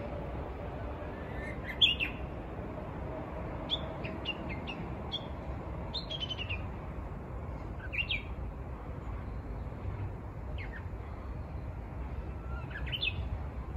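Japanese bush warbler (uguisu) calling: short high notes scattered every second or two, some with a brief rising slide, the season's first singing. A steady low rumble runs underneath.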